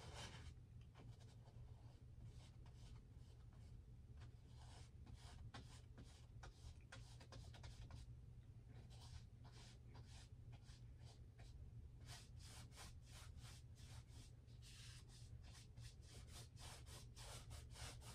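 Faint paintbrush strokes on canvas: a flat brush laying on black paint in many short strokes, one after another, more frequent in the second half.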